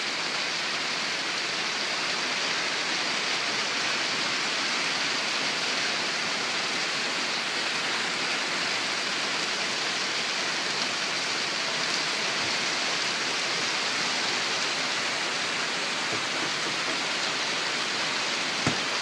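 Heavy rain falling in a steady, even hiss. One brief knock near the end.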